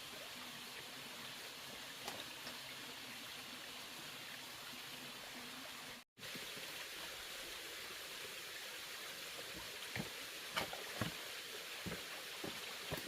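Steady rushing of flowing water, cut off to silence for a moment about six seconds in. Light clicks and knocks come several times near the end.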